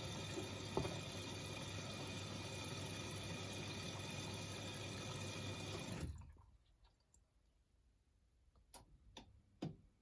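Miele front-loading washing machine filling: water sprays into the drum with a steady hiss, then stops about six seconds in. Three faint clicks follow near the end.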